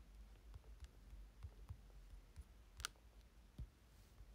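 Near silence with scattered faint clicks and light taps of a finger handling a smartphone, one sharper click about three seconds in.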